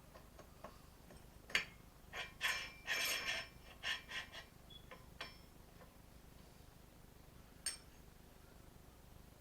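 A run of sharp clicks, clinks and short scrapes of tools and small parts being handled, bunched in the first half with a lone click later on.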